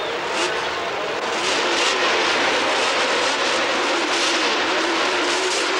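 A full grid of 1977 Formula One cars revving their engines together at the start of a race, held at high revs on the grid, the sound growing louder about a second and a half in as the field gets under way.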